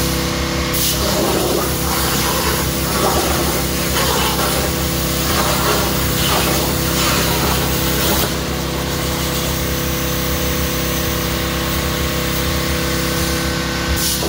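Spray gun hissing in several short bursts over a steady motor hum, as when spraying a finish onto furniture.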